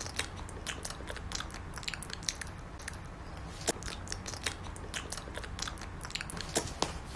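Pomeranian puppies biting and chewing on metal hooks in their mouths: irregular crisp clicks and crunches, several a second, over a faint low hum.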